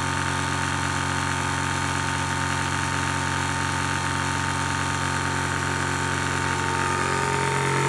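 Zhongyan water-cooled PCP high-pressure air compressor running with a steady hum, partway through filling an 18 cu in air tank towards 4500 psi. It gets a little louder near the end.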